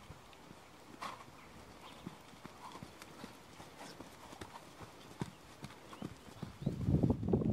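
Hoofbeats of a horse trotting on a sand arena, soft thuds in a steady rhythm, growing much louder and closer near the end.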